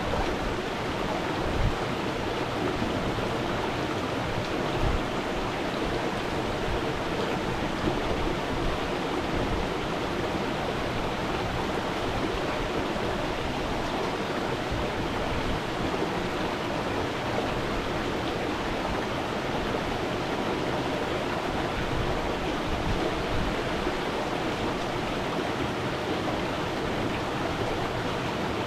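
Stream water flowing and burbling steadily, an even rushing noise with a few faint low thumps near the start.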